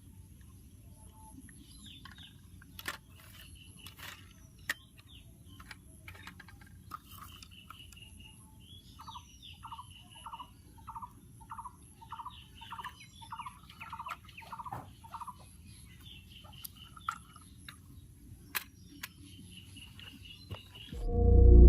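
Several birds chirping and calling outdoors, with one bird repeating a short down-slurred note about twice a second for several seconds in the middle. A few sharp clicks sound now and then, and music starts right at the end.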